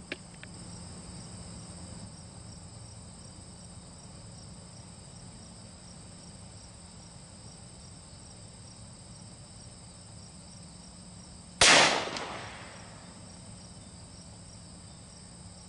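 A single unsuppressed shot from a .30-calibre rifle firing a subsonic handload, sharp and loud with a short decaying echo, about three quarters of the way through. Insects chirp steadily throughout.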